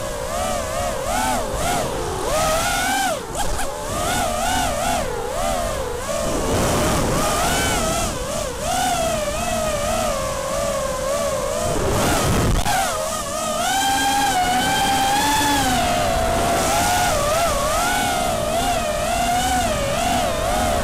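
Racing quadcopter's Emax 2205 2300 kV brushless motors and propellers whining, heard from the onboard camera, the pitch rising and falling constantly with the throttle. A brief low rush of noise about twelve seconds in.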